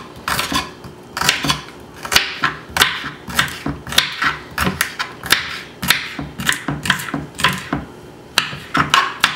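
Chef's knife chopping collard green stems on a wooden cutting board: a run of sharp knocks, about two to three a second, with a short lull near the end.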